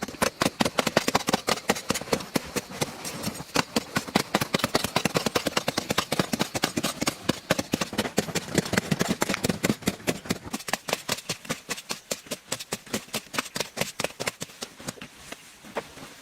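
A rapid, uneven series of sharp knocks or clicks, several a second, thinning out over the last few seconds.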